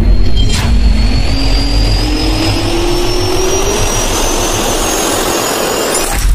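Jet-engine spool-up sound effect: a steady rush of noise with a slowly rising whine, a sharp hit about half a second in, and a thump at the very end.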